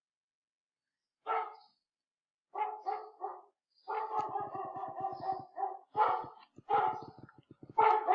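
A dog barking: a series of short barks starting about a second in, with a longer rasping stretch in the middle.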